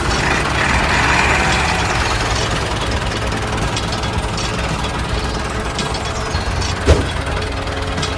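A small engine running steadily with a rattling clatter, and one sharp knock about seven seconds in.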